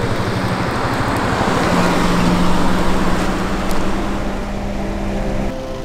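Car driving past on a street: tyre and engine noise swell to a peak about two seconds in over a steady engine hum, then cut off suddenly near the end.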